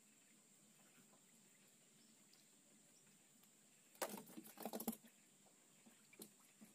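Near silence, broken about four seconds in by a second-long clatter of small sharp clicks and knocks, with a couple more single clicks near the end.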